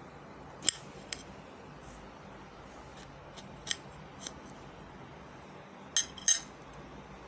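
Kitchen knife cutting into a raw green bell pepper: a handful of short, crisp clicks and snaps as the blade goes through the firm flesh, the two loudest close together near the end.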